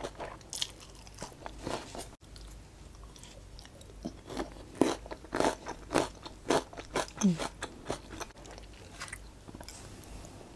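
Close-miked chewing of a crunchy mouthful: a run of crisp crunches, thickest in the middle, between quieter wet chewing.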